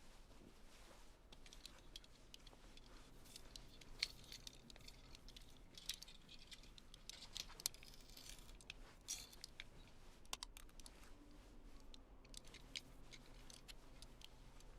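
Faint, irregular clicks and small scrapes of a small metal blade, a cheap multi-tool knife, picking and scraping at something hard, with a few sharper clicks scattered through.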